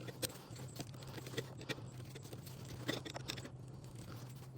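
Scattered light clicks and taps of a hand tool working a hose clamp and the hose under the hood, over a faint steady low hum.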